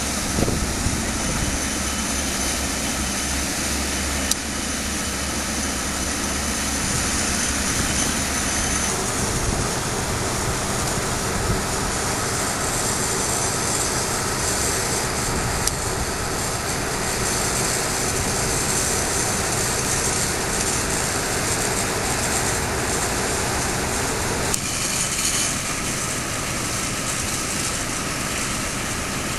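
Dredger's engines and discharge pump running steadily while the bow jet throws a continuous arc of dredged spoil into the water, a loud heavy drone mixed with rushing spray. The sound's character changes abruptly twice, about nine seconds in and near the end.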